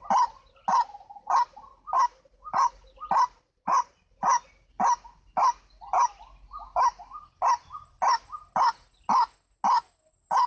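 White-breasted waterhen (ruak-ruak) calling: one loud note repeated evenly about every 0.6 seconds, some eighteen times.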